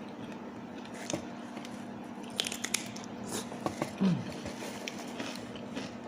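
Close-up eating sounds: crunchy bites and chewing, a series of sharp crackly clicks. About four seconds in there is a short low 'mm'-like sound falling in pitch, over a faint steady hum.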